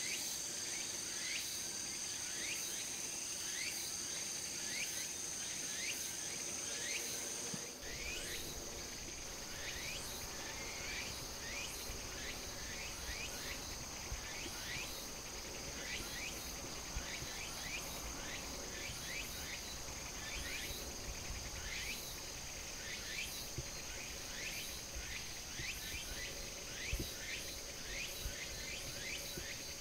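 Insects chirping in a ripening rice paddy: a steady high-pitched trill with repeated short falling chirps about twice a second. About eight seconds in, the highest band drops out and a low rumble comes in under the chirping.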